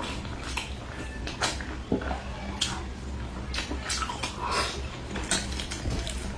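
A person eating close to the microphone: wet chewing and mouth smacking with irregular sharp crunchy clicks, several a second.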